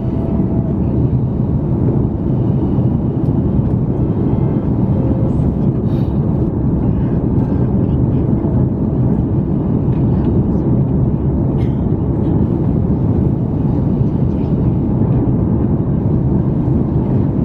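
Steady cabin noise of an Airbus A330-300 in flight: a dense, even low rumble of engines and airflow heard inside the cabin.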